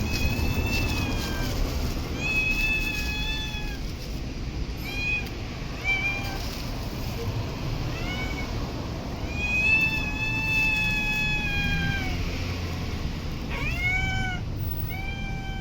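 A stray cat meowing over and over, about eight calls, some long and drawn out and some short, over a steady low rumble of background noise.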